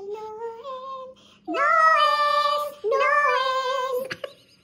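A woman singing in a high voice: a soft, rising phrase, then two loud, long held notes that slide in pitch. A short sharp knock comes near the end.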